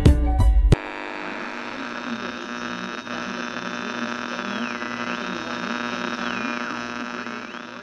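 Music with a beat cuts off abruptly about a second in, giving way to a steady electronic hum with several held tones and slow whistle-like tones that glide down and back up, fading away near the end.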